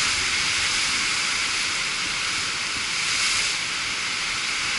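Heavy surf breaking on rocks and sea stacks below: a steady, hissing rush of white water.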